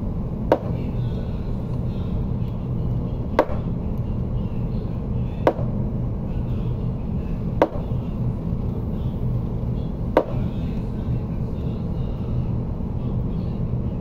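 A steady low hum with five sharp clicks or knocks, spaced about two to three seconds apart.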